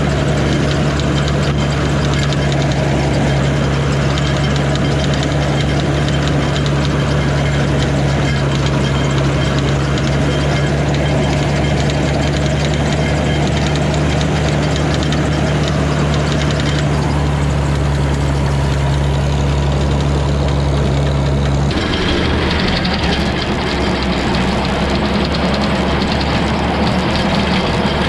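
Old farm tractor engine running steadily, a constant low drone. About 22 seconds in, the sound changes abruptly and the steady low hum gives way to a rougher, noisier running sound.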